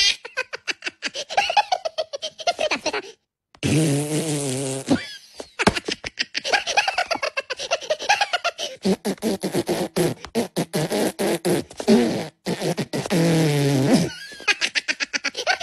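Two cartoon Minions laughing hysterically in long runs of rapid cackles. A long, low buzzing sound comes in twice, about four and thirteen seconds in.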